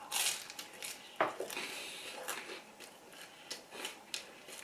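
Quiet eating sounds: chewing and handling food, with scattered small clicks and a sharper click about a second in.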